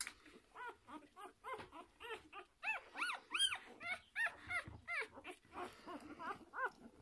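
Six-day-old puppies squeaking and whining as they jostle to nurse: many short, high calls that rise and fall, a few a second and often overlapping, loudest in the middle.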